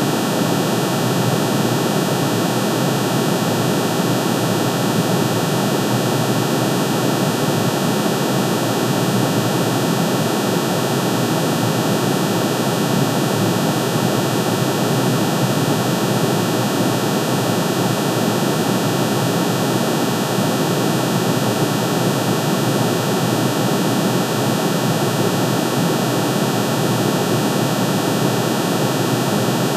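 Synthesized drone of aluminium's atomic emission spectrum, made of many summed sine tones, one for each spectral line, pitch-shifted into the audible range. It holds steady with no change, a dense hiss-like rush with many fine high tones over it.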